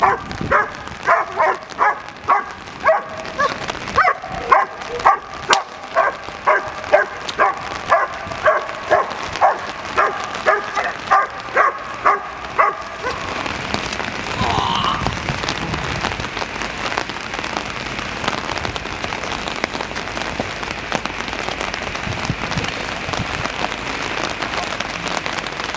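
Black German Shepherd barking repeatedly at a helper in protection training, about two barks a second, stopping about thirteen seconds in. After that, steady heavy rain on pavement is the main sound.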